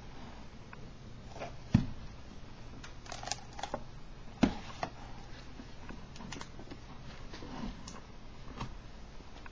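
A book being handled on a table: pages turned and pressed flat, with soft paper rustles and small clicks, and two sharper knocks about two seconds and four and a half seconds in.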